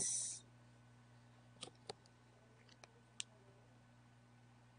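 A handful of faint, sharp clicks spread over a couple of seconds, over a low steady hum.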